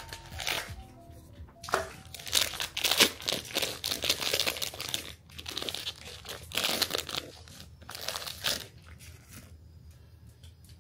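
Crinkling and rustling in irregular bursts, like something being handled and crumpled, thinning out near the end.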